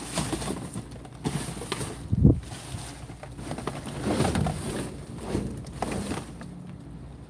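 Flattened cardboard boxes being pulled, shifted and scraped by hand inside a metal dumpster, in irregular rustles with a sharp knock about two seconds in, dying down near the end.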